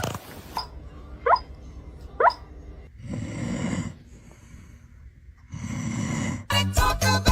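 A pet making two short rising squeaks, then two long snoring breaths; music with a beat comes in near the end.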